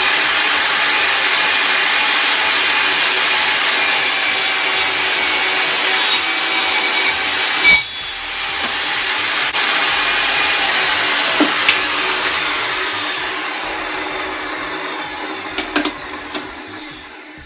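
Power saw cutting wood, running steadily and loudly, with one sharp crack about eight seconds in.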